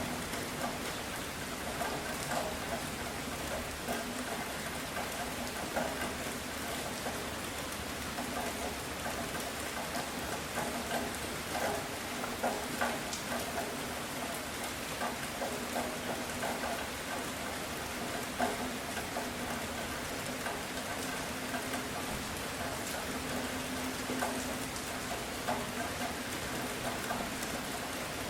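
Steady rainfall, with many individual drops ticking on a surface close by.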